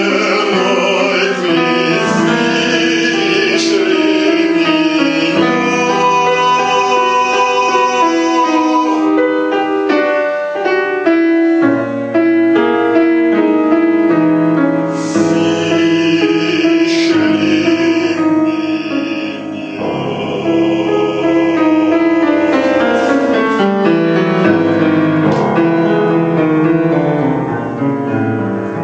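Bass-baritone voice singing a Russian art song, accompanied on a grand piano.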